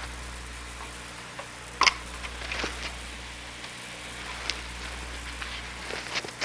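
Steady hiss and low hum of an old film soundtrack, with scattered faint crackles and one sharper click about two seconds in.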